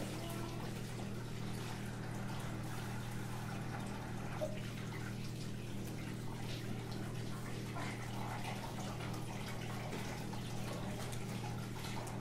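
Tap water running into a stainless steel kitchen sink while someone washes by hand, with small irregular splashes and clinks over a steady low hum.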